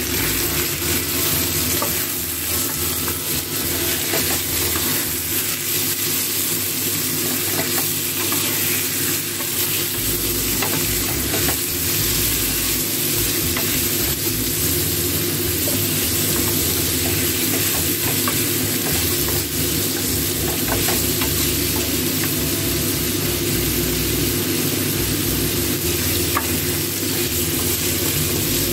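Cubed pork ribs frying in hot oil in a pan, a steady sizzle, with a wooden spatula stirring and scraping the pieces now and then.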